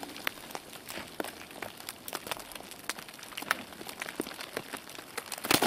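Irregular small clicks and crackles from ice climbing on snowy rock: ice and snow chips pattering and the axe and gear knocking against ice. A louder cluster of knocks comes just before the end.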